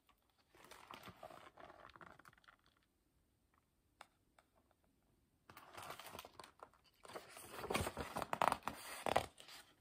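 Pages of a picture book being handled and turned: a faint paper rustle about a second in, then a longer, louder rustling of paper starting past the halfway mark.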